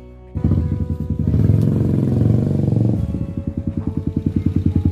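Motor scooter engine running as the scooter rides slowly up close. Over the second half its firing turns into a rapid, even low putter.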